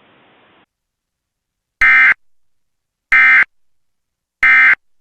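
Emergency Alert System SAME digital data tones: three short identical bursts about 1.3 seconds apart. This is the end-of-message code that closes an EAS alert.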